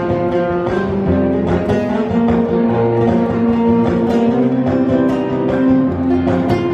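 Guitar music with sustained notes over low bass notes that change about every second.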